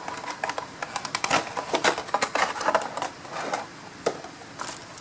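Bubble wrap and plastic packaging being handled and pulled apart: a dense run of crinkles and sharp clicks, busiest in the middle and thinning out near the end.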